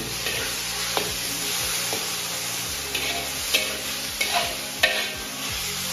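Snapping turtle meat and shredded ginger sizzling in oil in a black wok while being stir-fried with a wok spatula, a steady hiss broken by several sharp scrapes and clacks of the spatula against the wok.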